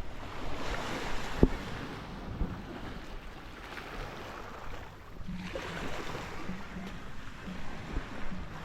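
Surf washing onto a sandy beach, swelling and easing, with wind buffeting the microphone. A sharp knock comes about a second and a half in.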